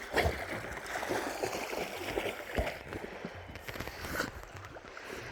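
Water sloshing and splashing around legs as someone wades up a shallow creek, in uneven strokes with a few sharper splashes.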